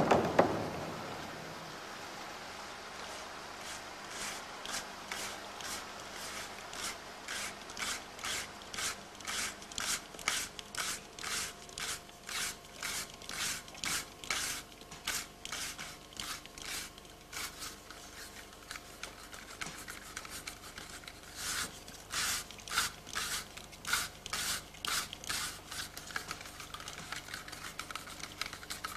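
Music fading out in the first second, then a steady run of short scraping strokes, about two a second, that continue with an even rhythm.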